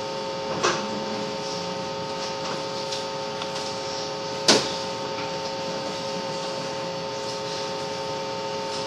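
Steady electrical hum and hiss, with a few faint steady tones. It is broken by two short sharp clicks: a light one under a second in and a louder one a little past halfway.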